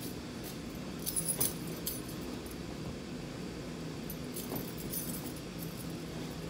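Bed being made up by hand, with a few light jingling clinks about a second in and again around four and a half seconds, over a steady low room hum.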